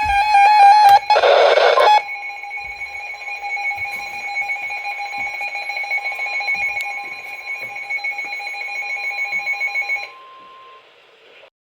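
Emergency Alert System alert signal for a high wind warning: a loud, steady electronic alarm tone, broken about a second in by a second-long burst of harsh noise. The tone then continues with a rapid flutter until about ten seconds in and drops to a faint remnant that stops shortly before the end.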